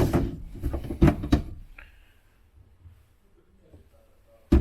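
Knocks and clicks of a boat's storage compartment lid being handled: a few sharp knocks in the first second and a half, a quiet stretch, then one loud knock near the end.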